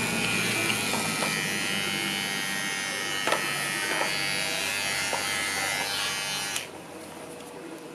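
Small cordless electric pet trimmer buzzing steadily as it clips the fur between a dog's paw pads, a fairly quiet motor hum; it switches off about six and a half seconds in.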